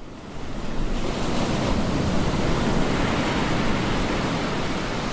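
Ocean surf: waves breaking and washing in a steady rush of noise that fades in over the first second.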